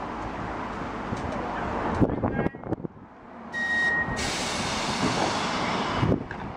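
Steady outdoor rumble and noise around a Manx Electric Railway tram and its waiting crowd, broken by a sudden drop about two seconds in. Just past the middle comes a short high beep lasting about half a second.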